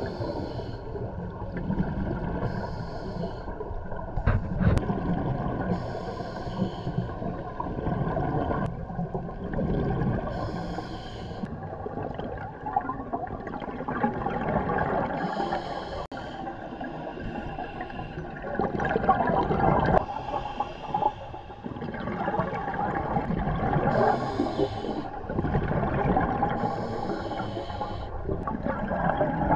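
Scuba diver breathing through a regulator underwater: a hissing inhale, then a rush of exhaled bubbles, repeating about every three to four seconds.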